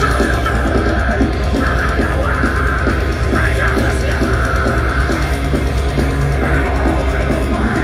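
Deathcore band playing live: distorted guitars, bass and drums in a loud, dense wall of heavy metal with a fast, driving rhythm.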